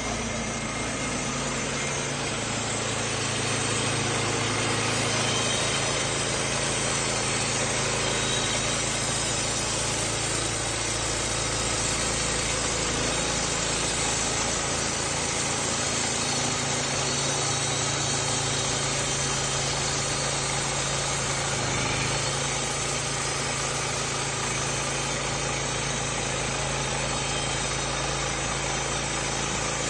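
Woodland Mill portable bandsaw mill running steadily, its small petrol engine driving the blade through a log to saw rafters.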